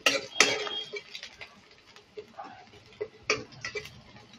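A metal spoon clinking against a kadai as it stirs chopped garlic and ginger in hot oil: a few sharp taps, two at the start and two more about three seconds in.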